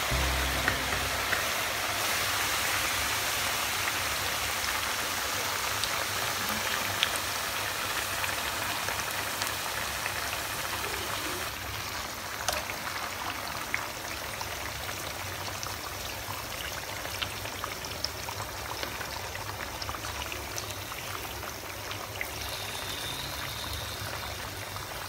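Sugar-coated sweet potato chunks deep-frying in hot oil: a steady sizzle that eases slightly over time, with scattered small clicks and crackles.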